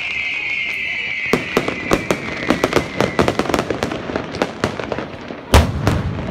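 Aerial fireworks: a whistle falling in pitch dies away in the first second, then a rapid string of sharp crackling reports, and near the end a loud boom followed quickly by a second.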